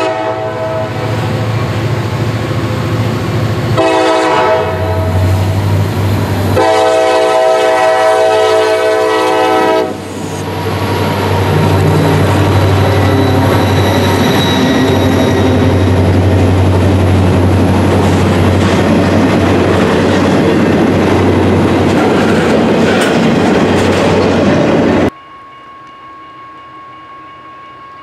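LSRC freight train led by an SD50-2 diesel locomotive. The chord horn sounds, with the tail of one blast, then a short blast and a long one. The locomotive then passes with its diesel engine running under load, followed by autorack cars rolling by with rhythmic wheel clicks on the rail joints. Near the end the sound cuts abruptly to a much quieter train far off.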